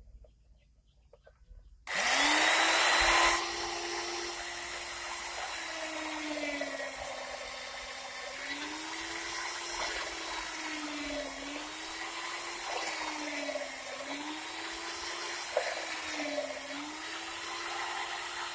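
Electric concrete drill (rotary hammer) switched on about two seconds in, loudest for its first second and a half. Its motor whine then sags and recovers about six times as the tool is loaded, the way it goes when it is pushed into chiselling concrete.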